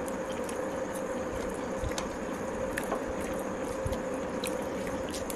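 A person chewing food, with small mouth clicks scattered through, over a steady background hum and hiss.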